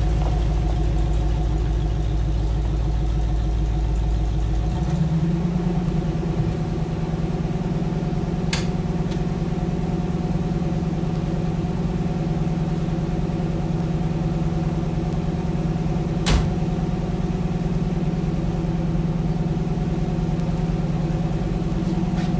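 1955 Chevrolet pickup's engine idling steadily after a hot-day cold start, its low note changing about five seconds in. Two sharp clicks about eight seconds apart come from the truck's door being opened and shut.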